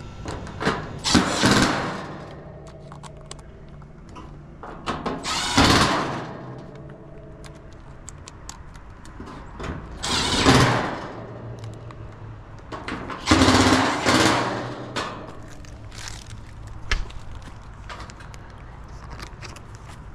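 Cordless power driver driving screws in four short runs of about a second each, with small metallic clicks of handling between them.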